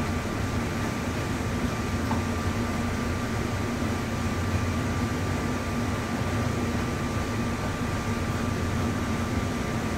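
Steady running noise inside a rubber-tyred Bombardier APM-100 people-mover car: a low rumble with a steady hum over it.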